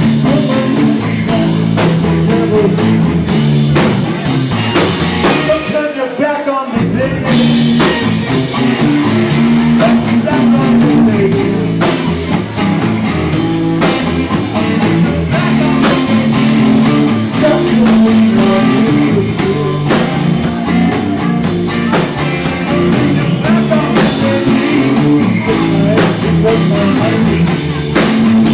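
Live rock band playing a guitar-led instrumental passage in a Latin-tinged blues-rock groove, with electric guitar and drums. The low end drops out briefly about six seconds in.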